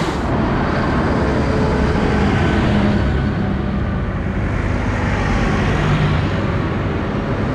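Tractor diesel engines running as a tractor drives past close by: a steady low engine drone that rises and falls a little in pitch.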